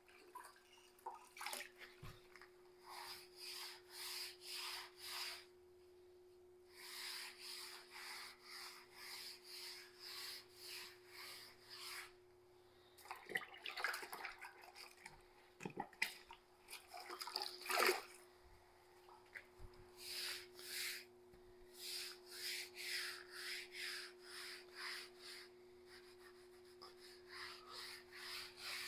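A wet sponge being worked back and forth over a freshly grouted concrete countertop and rinsed in a bucket of water, wiping off the soft grout: runs of rhythmic rubbing strokes, about two a second, broken by short pauses, over a faint steady hum.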